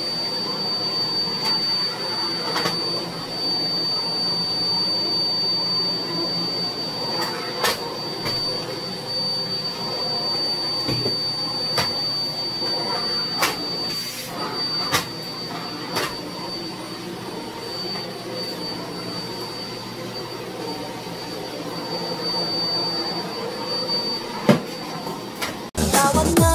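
Canister vacuum cleaner running steadily with a high whine, with a few sharp knocks as it is worked over the floor. Music cuts in just before the end.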